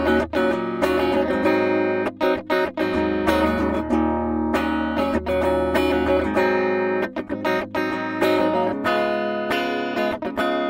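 Schecter V-1 Hellraiser FR electric guitar played through its EMG neck pickup with a clean tone, strumming chords and picking notes; each pick stroke has a sharp attack, and a held low note rings until about six and a half seconds in.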